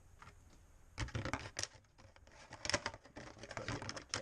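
Irregular small clicks, creaks and rubbing from an old rubber upper radiator hose being wiggled and twisted to work it loose from its radiator neck, starting about a second in.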